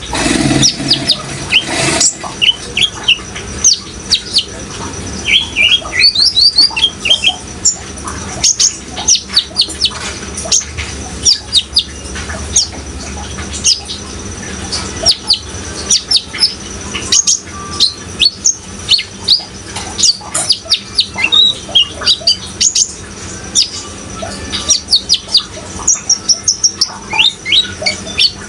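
Kolibri ninja (a sunbird) singing: rapid strings of high, thin chirps and quick falling notes, with a steady water sound underneath. A low rumble fills the first two seconds.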